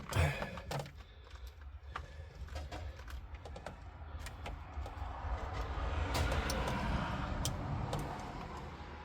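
Light clicks and rattles of tools and parts being handled, over a low rumble that swells about five seconds in and fades near the end.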